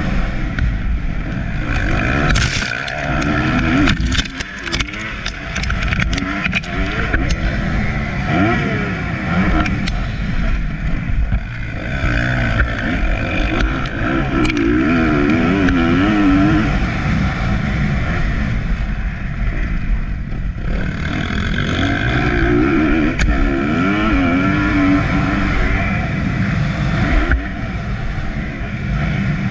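Motocross dirt bike engine heard from the rider's onboard camera, revving up and falling back again and again as it races over the dirt track. Several sharp ticks come through in the first ten seconds or so.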